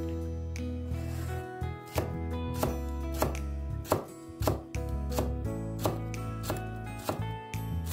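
Chef's knife chopping through spring onion stems onto a wooden cutting board, evenly paced strokes about one every two-thirds of a second, over background music.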